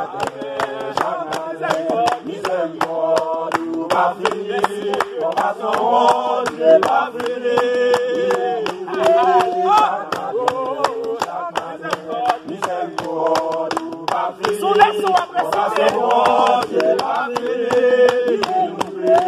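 A group of voices singing a worship song together, with hand clapping keeping a steady beat of about two to three claps a second.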